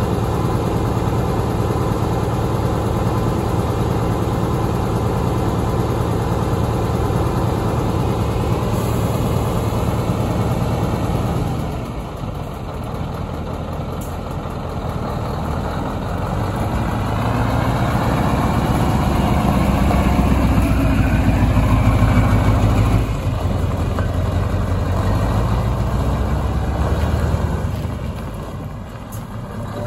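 Scania T144 530 tractor unit's 14-litre V8 diesel idling steadily, then pulling away: the engine note rises twice with a dip in between and falls away near the end as the truck drives off.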